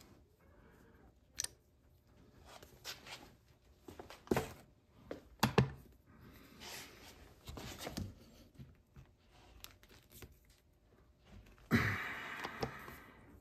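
Colt Walker percussion revolver handled during loading: scattered sharp metallic clicks and knocks as the cylinder is turned and the gun set down, then a rustling, scraping sound lasting about a second near the end.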